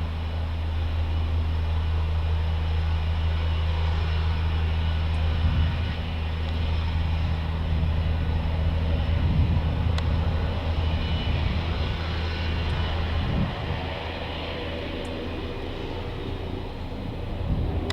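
Offshore rig-transport helicopter running, its rotors and engines giving a steady low drone. It eases off a little about three-quarters of the way through, then swells again at the end.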